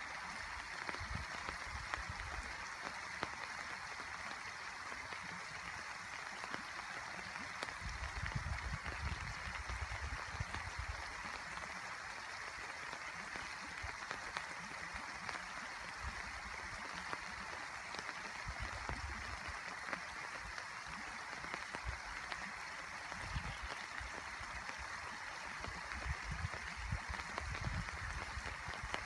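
Steady rain falling, a continuous hiss with scattered faint drop ticks. Intermittent low rumbles come and go several times.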